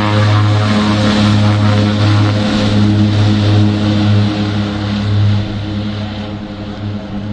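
Twin-engine turboprop airplane on its takeoff roll, its propellers giving a loud, steady drone with a hiss above it. The sound starts to fade about five seconds in as the plane moves away down the runway.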